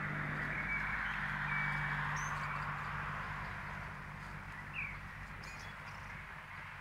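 Outdoor ambience: a steady hiss with a low hum underneath, and a few brief bird chirps, one of them a short sliding chirp about five seconds in.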